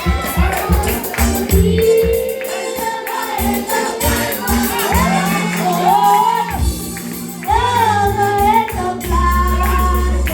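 Gospel song: voices singing over bass notes, drums and tambourine.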